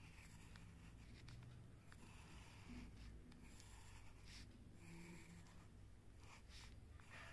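Faint scratching of a graphite pencil on paper, drawn as several short curved strokes with brief pauses between them.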